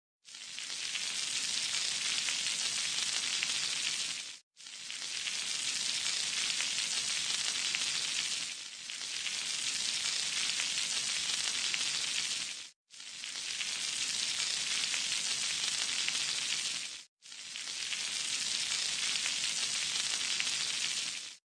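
Food frying in hot oil in a pan, a steady sizzling hiss. It comes as five short cuts of about four seconds each, with a brief silence between most of them.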